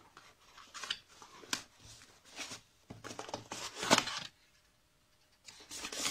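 Cardboard packaging being handled: an inner cardboard tray scraping and sliding out of its box in a run of rustling scrapes, loudest about four seconds in, then a short pause before one more scrape near the end.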